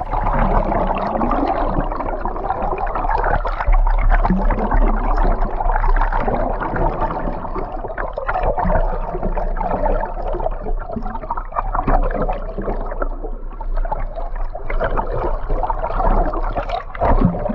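Water rushing and gurgling around a camera held at and below the surface beside a boat moving slowly forward. The sound is a continuous, uneven wash that rises and falls throughout.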